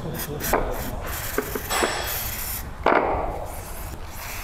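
Short hisses of an aerosol lubricant spray and gloved hands rubbing over the metal housing of a rear-axle AWD coupling, with a sharp knock about three seconds in.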